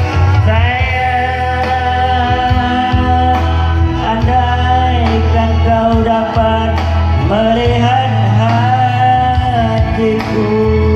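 Keyboard music with a heavy, steady bass and a lead melody that slides between held notes.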